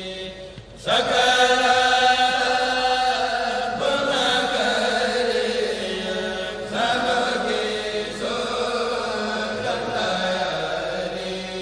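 An Arabic khassida, a devotional poem, chanted in long, held melodic lines, one verse after another, with short breaths between the lines.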